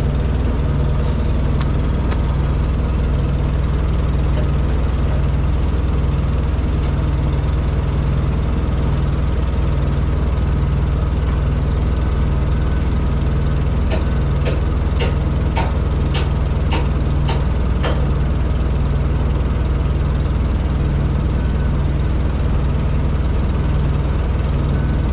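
Heavy diesel truck engine idling steadily, with an even pulsing throb. A run of about seven sharp clicks comes a little past halfway.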